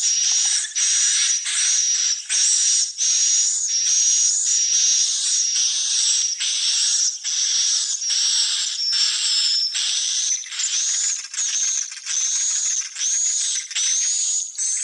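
Swiftlet calls: an unbroken series of high chirps with a whistled tone, about three every two seconds.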